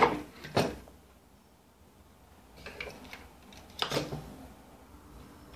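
Quiet handling sounds of hands working over a TV power-supply board: a few brief knocks and rustles, the clearest about half a second in and near four seconds, over a low steady hum.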